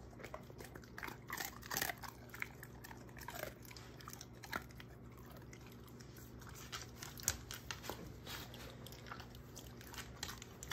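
A German shorthaired pointer chewing a treat: irregular crunches and wet mouth clicks.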